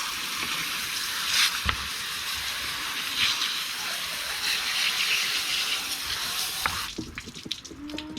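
Running water rinsing a freshly cleaned and scaled pompano: a steady splashing hiss that cuts off about seven seconds in, followed by a few light knocks of handling.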